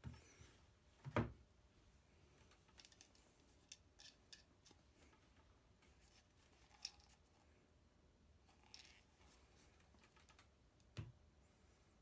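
Plywood boards fitted with aluminium plates handled and set down on a plywood workbench: a knock about a second in and another near the end, with faint clicks and rustling between.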